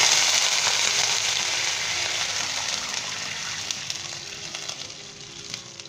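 Soaked basmati rice and its water poured into hot ghee in a frying pan: a loud sizzle with splashing that starts at full strength and fades steadily over several seconds.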